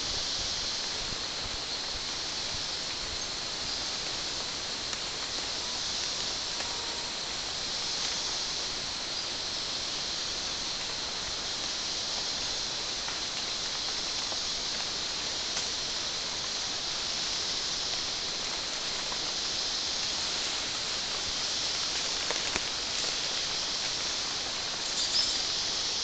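Steady high-pitched chorus of rainforest insects, an even hiss that slowly swells and fades, with a few faint clicks near the end.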